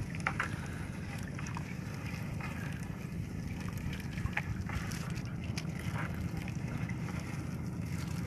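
Nylon gill net being hauled and picked by hand, giving scattered faint rustles and clicks, over a steady low rumble.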